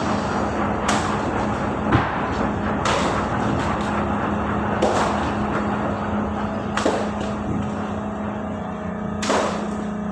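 Ship's machinery running with a steady low hum, broken by about six sharp knocks or bangs at uneven intervals.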